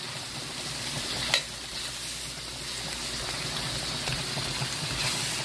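Flour and onions browning in hot oil in a frying pan for gravy, sizzling steadily, with a single sharp tap about a second in.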